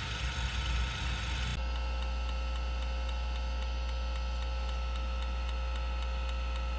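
Running IBM PC AT with its case open: a rough, uneven whir of the spinning hard drive and cooling fan for the first second and a half, then after an abrupt change a steady low hum with a faint high whine over it.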